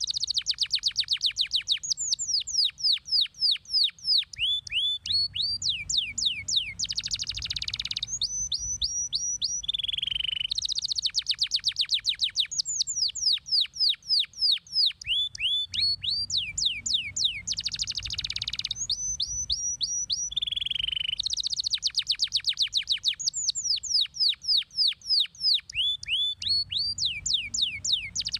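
Domestic canary singing a fast, continuous song: long rapid trills of quick downward-sweeping notes, short held notes and buzzy rolled passages. The same song phrase comes round again about every 11 seconds.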